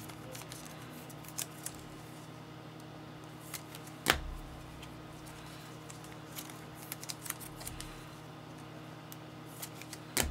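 Trading cards being handled and sorted: scattered light clicks and rustles, with a sharper click about four seconds in and another near the end.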